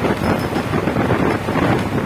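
Train running at speed, heard from on board: a steady rumbling noise mixed with wind buffeting the microphone.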